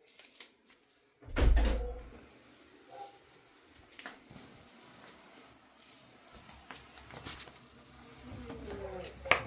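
A dull low thump about a second and a half in, followed by scattered light clicks and knocks. Faint voice-like murmuring comes near the end.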